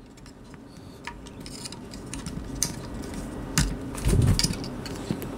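A flat metal blade clicking and scraping as it pries loose the trim ring around the 7-inch woofer of a Starke Sound Beta7 bookshelf speaker, with scattered sharp ticks and a few low thumps about four seconds in.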